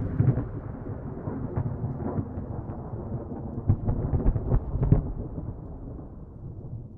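Thunder from a nearby lightning strike, a low rumble fading out slowly, with a few short sharp cracks in the middle.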